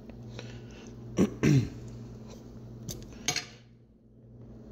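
A person clears their throat in two short rasps about a second in, over a steady low hum. Around three seconds in, metal kitchen tongs click twice against the plate and pot while handling the bratwursts.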